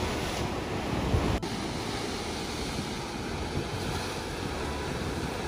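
Ocean surf washing steadily at a coastal blowhole, with wind rumbling on the microphone.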